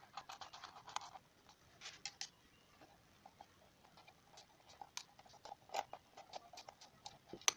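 Faint, irregular small clicks and taps of a hex key and steel cap screws against a plastic tool housing as screws are turned in by hand, with one sharper click near the end.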